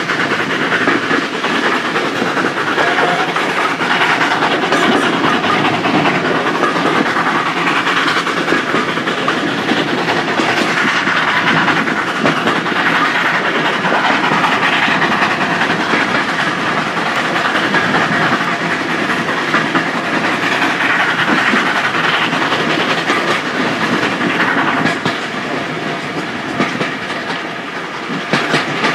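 Train heard from a carriage window as Hunslet 0-6-0 saddle-tank steam locomotive "Jessie" works hard up a steep bank, its exhaust mixed with the carriages' wheels running over the rails. A steady, loud noise that drops a little a few seconds before the end and comes back up as the train passes under a bridge.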